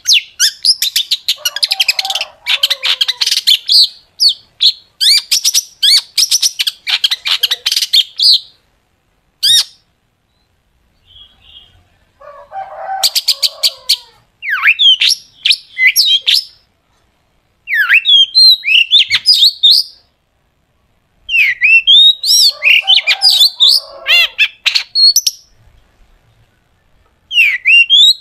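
Long-tailed shrike singing in loud phrases of very rapid, sharp ticking trills and sweeping whistled notes, with short pauses between phrases. This is the harsh, rapid-fire song with 'shots' (tembakan) that keepers play to get their own shrikes singing.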